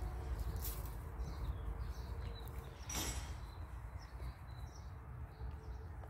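Faint outdoor ambience: small birds chirping now and then over a low steady rumble, with one sharp click about halfway through.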